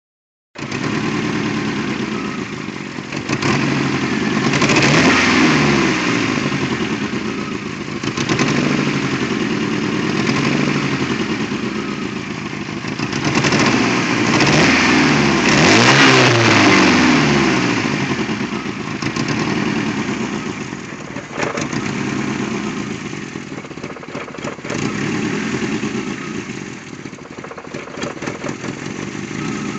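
Toyota AE86 Corolla's 4A-GE twin-cam four-cylinder engine running unevenly and misfiring, its revs rising and falling twice. The uploader traced the misfire to a bad throttle position sensor.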